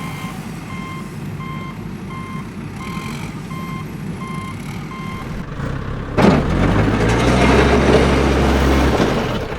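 Truck reversing alarm beeping about twice a second, then from about six seconds in a louder truck engine rumble with a rushing hiss for about three seconds.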